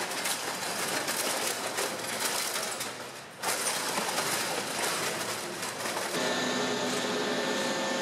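Forrec FR-series multi-crusher shredding washing machines: a dense, irregular crunching and clattering of sheet metal and plastic being torn between the rotating shafts, with a short dip a little after three seconds. About six seconds in the crunching thins, and a steadier machine hum with a whine comes through.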